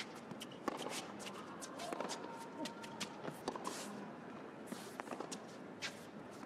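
Tennis rally on an indoor hard court: sharp, irregular pops of racket strikes and ball bounces, with players' shoes scuffing and squeaking on the court.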